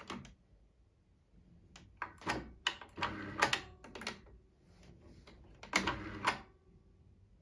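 Hand-operated parts of a Pfaff Synchrotronic 1229 sewing machine clicking and rattling as a hand works the levers and thread around the needle after threading, in three short bursts.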